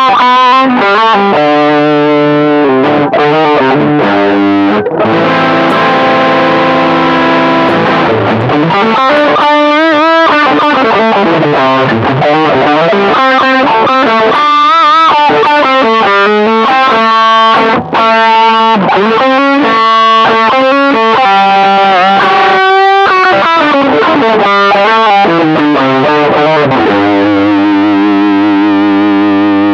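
Electric guitar played through a Caline High Peak high-gain distortion pedal, switched on: distorted riffs and long held notes with vibrato.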